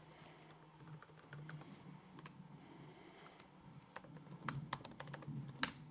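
Computer keyboard typing: scattered faint key clicks that quicken into a run of keystrokes near the end, the strongest stroke coming just before the end, over a faint steady low hum.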